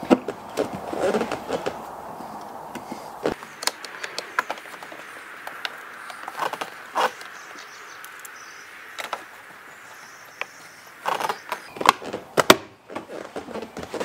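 Scattered clicks and knocks of plastic interior trim and a screwdriver being handled as a car's centre console is screwed back together, with a quick run of sharper clicks near the end.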